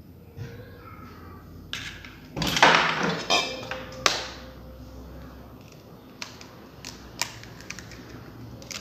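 Eggs being cracked and separated over stainless steel bowls: light clicks and taps, a loud rustling scrape about two and a half seconds in, and a sharp knock about four seconds in that leaves a steel bowl ringing briefly.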